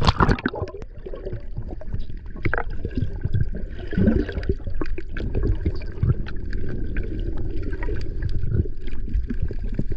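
Muffled water sound picked up by a camera held underwater: a low rumble of moving water with scattered irregular clicks and gurgles.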